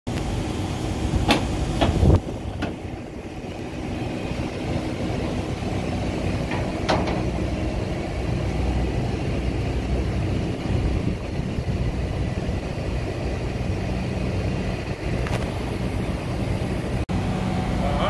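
Steady mechanical drone of a bank of air-conditioner outdoor units running, with a few knocks and clicks in the first seconds, the loudest about two seconds in, as a unit's metal side panel is handled.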